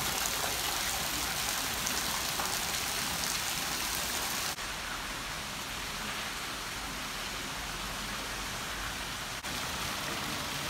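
Steady hiss of falling water, broken twice by sudden brief dips, about four and a half seconds in and near the end; after the first it sounds duller.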